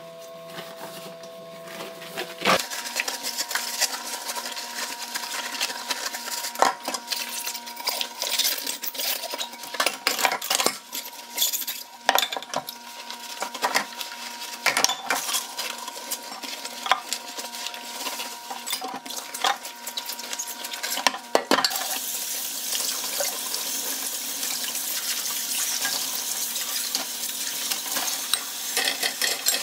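Dishes being hand-washed in a stainless steel sink: glassware, plastic containers and utensils clink and knock as they are scrubbed and moved around. About two-thirds of the way in the tap is turned on and runs steadily as a glass container is rinsed under it.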